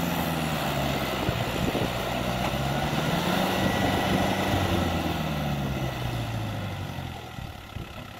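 Kubota L4508 tractor's diesel engine running under load as the tractor works through deep mud, its pitch rising and falling slightly. The sound fades away near the end.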